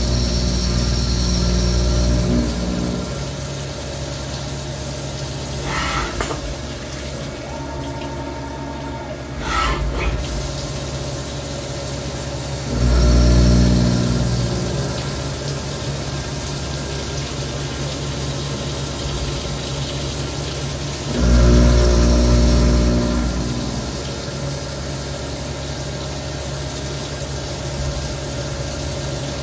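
HAAS Minimill HE vertical machining center running a cut with flood coolant spraying on the tool: a steady motor hum over the hiss and splash of coolant. It swells to a louder, deeper drone three times, at the start, about 13 seconds in and about 21 seconds in, with a couple of short sharp sounds in between.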